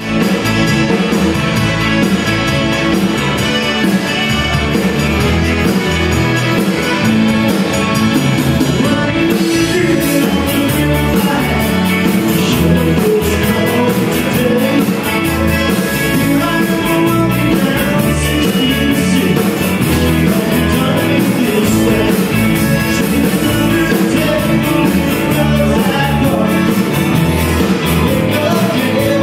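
Live Tex-Mex country band playing a song, with electric guitar, drums, keyboard, button accordion and a lead singer, heard from the audience in a theatre. The cymbals and drums pick up about ten seconds in.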